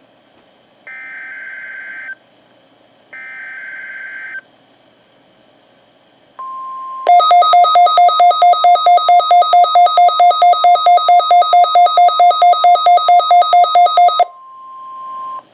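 Two short bursts of screeching SAME digital header tones from a NOAA Weather Radio broadcast. Then, about six seconds in, the steady 1050 Hz weather radio warning tone begins, and a weather radio receiver's own loud pulsing alarm beeps over it about four times a second for some seven seconds. Only the steady tone is left near the end, growing louder until it cuts off.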